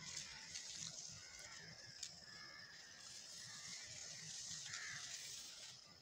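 Faint outdoor ambience under fruit trees: a steady high thin hum over a soft hiss, with a couple of small clicks and a brief faint call.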